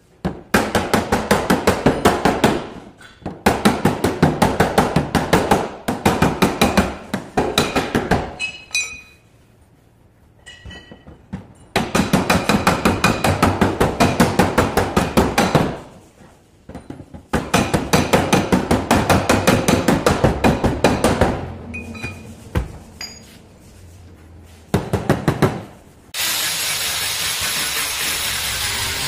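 A hand tool is worked against a car door's sheet-metal panel in fast runs of sharp strikes lasting a few seconds each, with short pauses between them. About 26 seconds in, a handheld sander starts on the door with a steady hiss.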